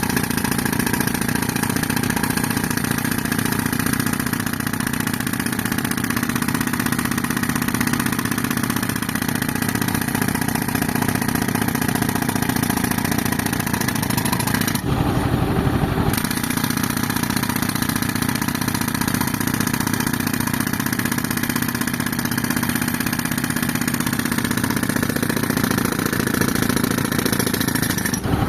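Tractor engine driving an air compressor runs steadily under load, with the rapid, even clatter of a pneumatic breaker hammering reinforced concrete. Halfway through, the sound changes for about a second and then returns to the same pattern.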